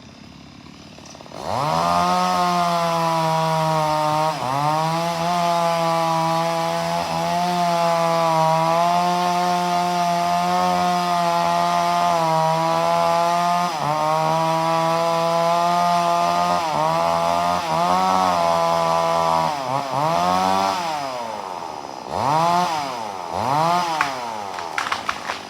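Chainsaw running at full throttle, cutting through wood while a tree is felled, its pitch dipping briefly a few times under load. Near the end it is revved up and let off several times.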